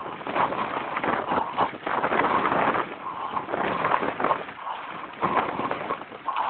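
Irregular knocking and rattling with a rushing noise, as the recorder is carried at speed over a rough dirt track.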